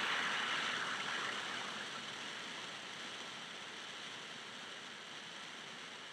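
Steady hiss-like background noise with no distinct events, fading down over the first two seconds and then holding level.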